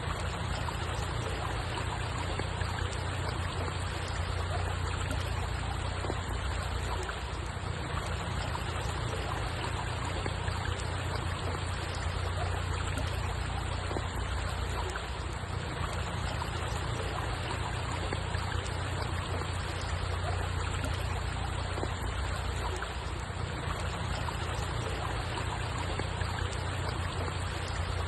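Steady flowing water, an unbroken trickling rush with a deep low undertone and no separate events.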